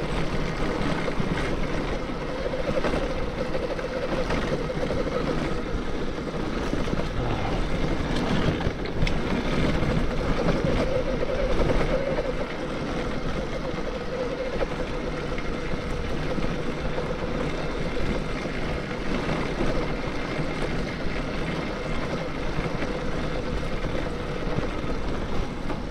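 Bafang BBSHD mid-drive e-bike motor whining under power, its pitch swelling and easing a little with speed, over a steady rush of tyre and trail noise.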